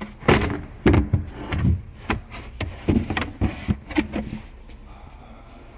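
Peugeot 3008 boot floor panel being lowered and settled into place: a run of knocks and thumps over about four seconds.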